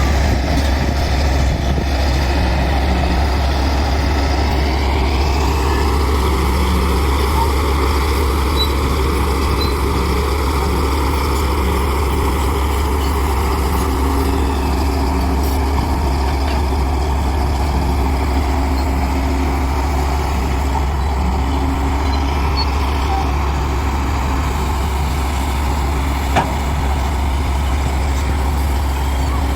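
Heavy diesel engine of earthmoving machinery running steadily, a constant low rumble with higher tones that slowly rise and fall as the load changes. A single short knock about 26 seconds in.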